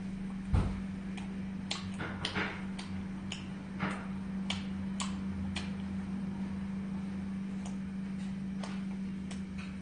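Scattered light clicks and ticks of eating at a table, with one thump about half a second in, over a steady low hum.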